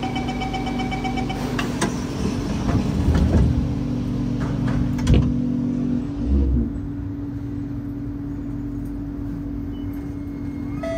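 Kawasaki C751B metro train at a station: the door-closing chime beeps rapidly for about a second and a half, heavy knocks follow as the doors shut, and the train pulls away with a steady low hum from its motors and equipment.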